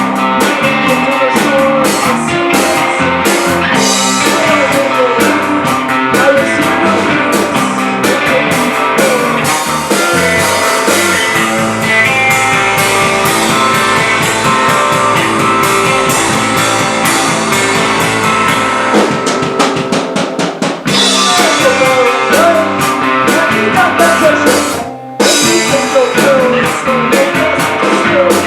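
Live rock band playing: drum kit, electric guitar and bass, with singing. The music drops out briefly near the end, then comes back in.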